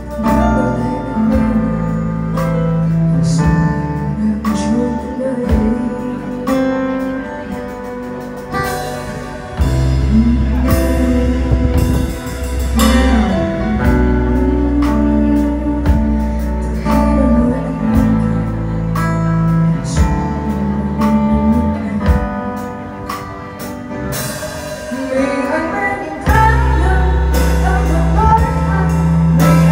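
Live band playing a song: a lead singer over a drum kit with cymbal crashes, guitar and sustained deep bass notes.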